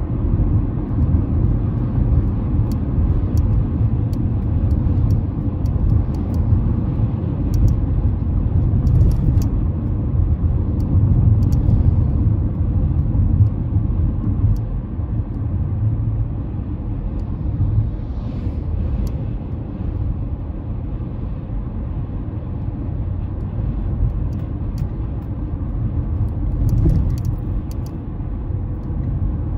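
Honda CR-V on the move, a steady low rumble of road, tyre and engine noise as heard from inside the cabin.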